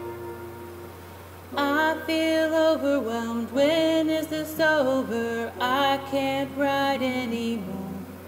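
Music: a held chord fades out, then about a second and a half in a singing voice comes in with a melody of long held, wavering notes that fades near the end.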